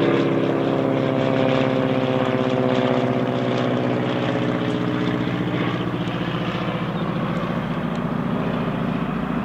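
North American T-6 Texan's nine-cylinder radial engine and propeller droning as the plane passes overhead, its pitch sliding gradually lower as it flies away.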